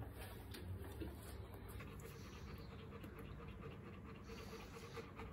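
Rottweiler bitch panting faintly while in labour, just after delivering her first puppy.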